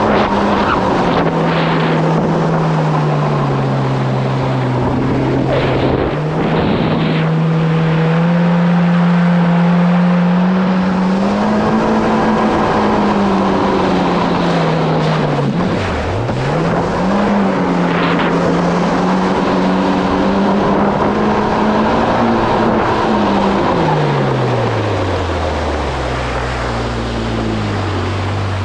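Kawasaki SX-R 1500 stand-up jet ski's four-stroke four-cylinder engine running under way, with water rushing along the hull. The engine note wavers with the throttle, dips sharply and climbs back a little past halfway, then falls away near the end as the ski slows.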